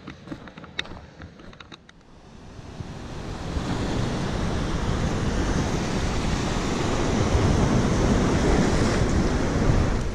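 Sea surf washing over a rocky shore, building up over the first few seconds and then loud and steady, with wind buffeting the microphone. A few sharp clicks come in the first two seconds.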